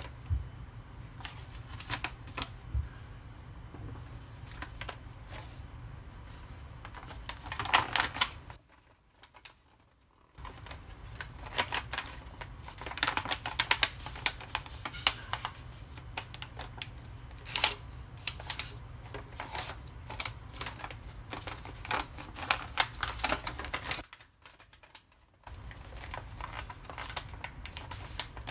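A sheet of origami paper being folded and creased by hand: irregular crisp rustles and crackles over a steady low hum. The sound drops out twice for about a second and a half.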